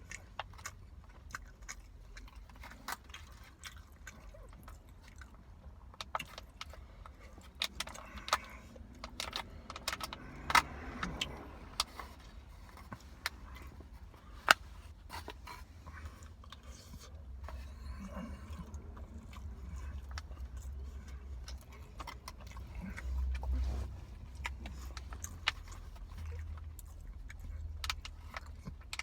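Eating chicken biryani: scattered sharp clicks and clinks of a utensil against a takeout container, with chewing, over a low steady rumble.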